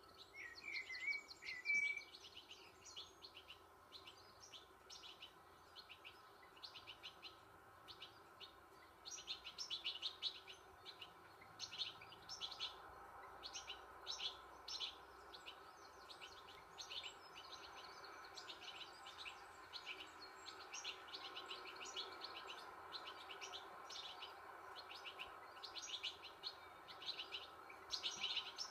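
Small birds chirping in quick, repeated bursts, with a short whistled call about a second in, over a faint steady hum, played from a wildlife documentary on a television.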